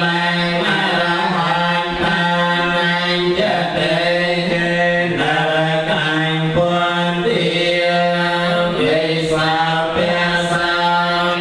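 Buddhist chanting by a group of voices in unison, held on a steady reciting tone while the syllables shift above it, without a break.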